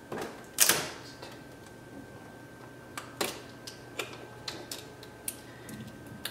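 Hands fitting continuous-ink-system tubing inside an open Epson WF-7710 inkjet printer, making plastic clicks and taps: a short crackle about half a second in, then a run of scattered sharp clicks.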